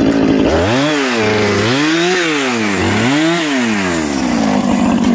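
Two-stroke chainsaw bucking a fallen tree trunk, its engine pitch rising and falling in three smooth swells about a second apart as the load in the cut changes, then holding steadier near the end.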